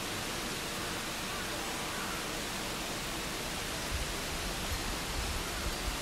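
Steady, even hiss of outdoor background noise, joined by a low rumble from about four seconds in.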